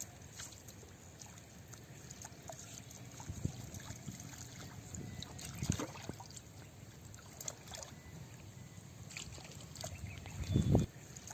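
Water sloshing and trickling with scattered small knocks and splashes, and a louder splash about ten and a half seconds in.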